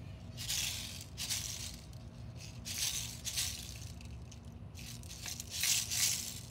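Steel BBs rattling in several short shaken bursts, as the air rifle's empty magazine is refilled.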